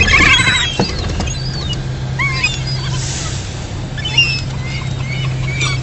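Gulls calling in short, bending cries, one after another. The loudest is right at the start, over a steady low hum.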